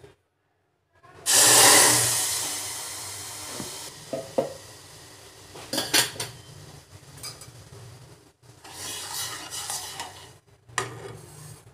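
Water poured into a hot saucepan of masala oats and spices sizzles about a second in, with a loud hiss that fades over a few seconds. After that, a spoon clinks against the saucepan a few times and scrapes as it stirs the bubbling oats.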